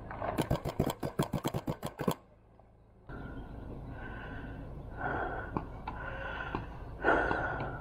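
Paintball marker firing rapidly, a quick string of sharp pops at about eight a second for under two seconds. It stops abruptly, and after a short gap there is a steady hiss with breathy swells about once a second.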